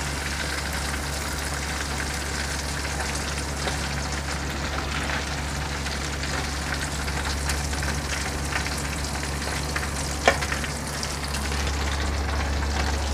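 Chicken pieces deep-frying in hot oil in a kadhai: a steady, even sizzle. A single sharp knock sounds about ten seconds in.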